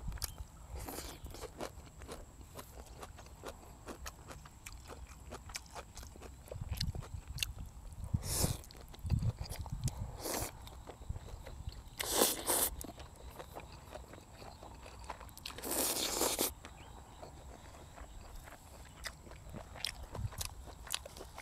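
A person eating up close: chewing and crunching with many small wet clicks, broken by four short loud slurps of egg noodles, the longest about three-quarters of the way through.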